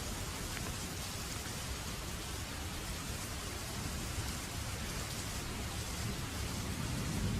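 Steady rain falling, an even hiss of drops with a low rumble underneath that swells near the end.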